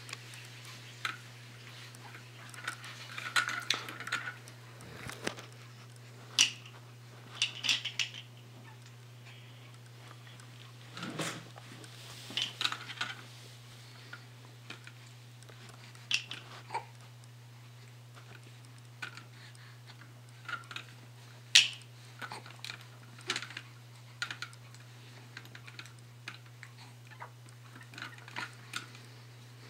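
Plastic rings and toys on a baby play gym clicking and rattling irregularly as an infant grabs and shakes them, with a steady low hum underneath.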